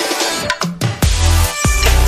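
Background electronic music. A short falling sweep comes first, then about a second in a heavy deep bass and sharp drum hits come in.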